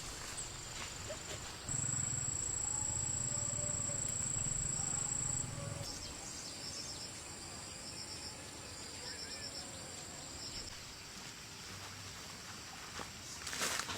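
Insects trilling in one steady high-pitched note, which grows much louder for a few seconds near the start and then drops back. Fainter short, pulsed chirps come in over it in the second half.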